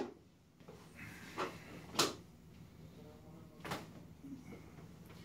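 Three light knocks or clicks, spaced a second or two apart, the loudest about two seconds in, with a faint murmur of a voice between the second and third.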